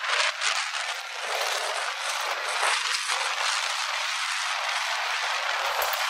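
Steady rushing wind and road noise from riding a motor scooter at speed, slightly louder for a moment at the very start.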